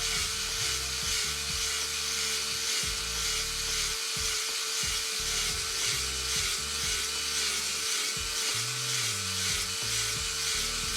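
Background music with a stepping bass line, over a steady high-pitched motor buzz.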